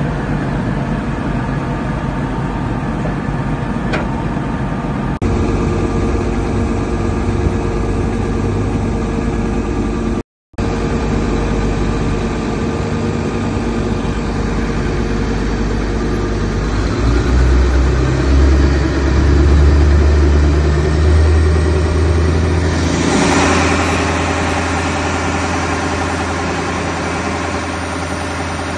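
Wirtgen W210 road milling machine's twin Cummins QSL9 diesel engines running at about 1000 rpm idle. A brief dropout comes about a third of the way in. From a little past halfway the engine note grows deeper and louder, with more rushing noise added a few seconds later.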